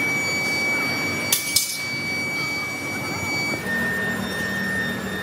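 Factory machinery running with a steady high whine over a noisy background, broken by two sharp knocks about a second and a half in. Later the whine drops to a lower pitch and a low hum joins it.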